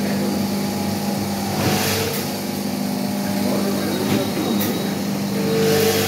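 Blister packing machine running: a steady motor hum with its chain drive turning, broken by two short hisses, about two seconds in and near the end.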